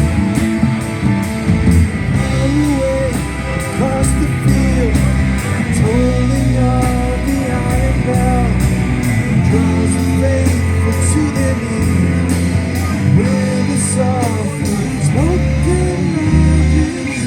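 Live rock band playing an instrumental passage: an electric guitar lead with bending notes over a steady bass line and drums, with cymbals keeping an even beat.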